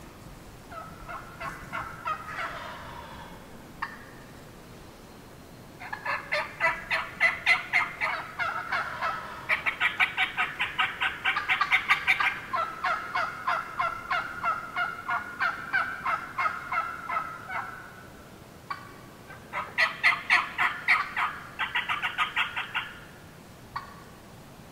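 Wild turkey yelping and cutting: long runs of sharp, quickly repeated notes that speed up in places. A short faint series comes first, then a long run, then a shorter one near the end.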